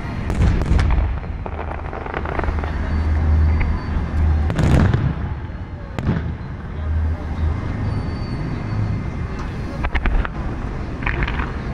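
Fireworks display: aerial shells bursting with deep booms and sharp cracks over a low rumble, the loudest burst about four and a half seconds in, with a quick cluster of reports near the end.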